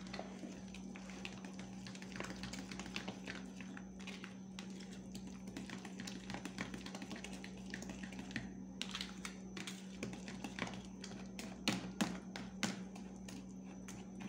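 A metal spoon stirring a thick, wet mash in a plastic tub, with quick irregular clicks and scrapes of the spoon against the tub that come thickest and loudest near the end. A steady low hum runs underneath.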